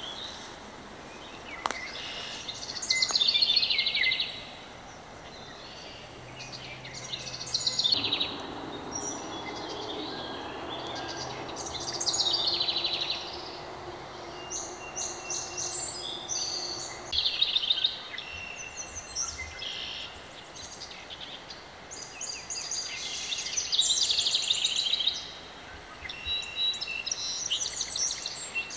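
Songbirds singing, with one bird repeating a fast, tumbling trilled phrase every few seconds. A faint low drone runs under it for several seconds in the middle.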